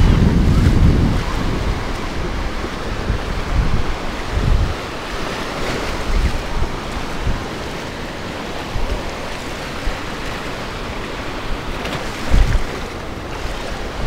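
Ocean surf washing onto a beach, a steady hiss, with wind buffeting the microphone in low gusts, strongest at the start and again briefly about four and twelve seconds in.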